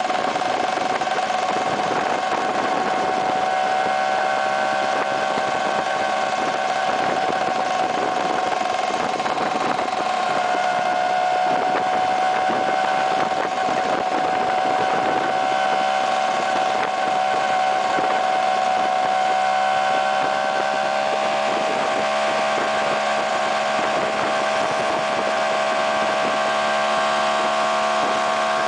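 Vespa PX scooter's single-cylinder two-stroke engine running at a steady cruising speed under way, a steady drone whose pitch shifts only slightly, over a constant hiss of wind and road noise.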